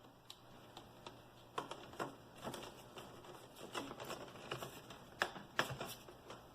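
Light, irregular clicks and taps of plastic laptop screen parts being handled and fitted, a few a second at times, starting about a second and a half in.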